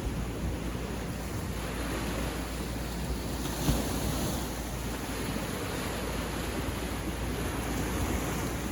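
Sea surf on a beach: waves washing in steadily, with one louder wave break about three and a half seconds in.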